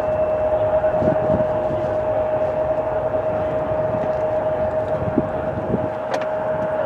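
Jet airliner engines at takeoff power, heard across the airfield: a steady whine held at one pitch over a broad rumble.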